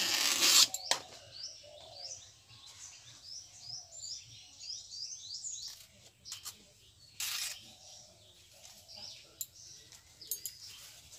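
Banana leaf rustling as it is sliced on a boti blade, a loud swish at the start and a few shorter swishes near the middle. Through the first half a small bird chirps in a quick string of high calls, about three a second.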